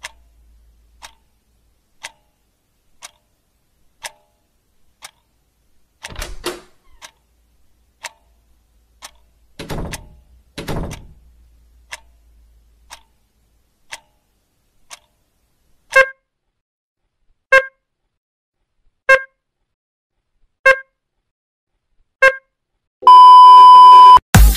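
Clock ticking about once a second, with two brief noisier sounds in between. Then a run of loud electronic beeps about every one and a half seconds, and a loud steady electronic tone for about a second near the end.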